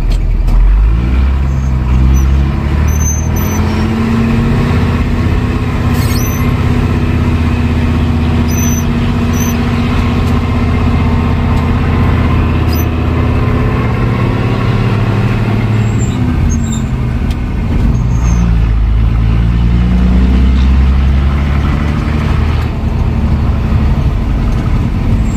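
Scania Vabis truck engine rumbling as it drives under way. The engine note drops and climbs again about two-thirds of the way through.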